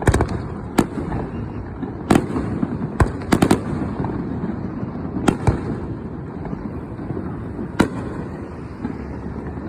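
Aerial fireworks shells bursting: about ten sharp bangs at irregular intervals of a second or two, including a quick cluster of three or four about three seconds in, over a continuous low rumble.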